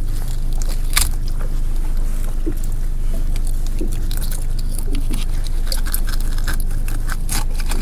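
A knife cutting through and tearing out a king salmon's gills: a run of short, wet, crunching clicks. Under it is the steady low hum of the boat's engine.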